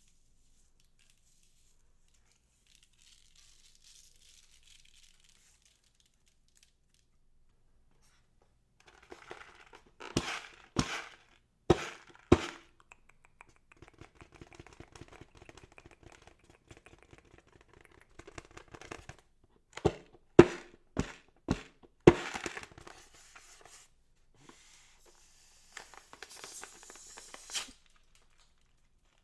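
Handling noises: sharp cracks in two clusters, about ten and twenty seconds in, with crinkling and rustling between them and a higher hissing rustle near the end.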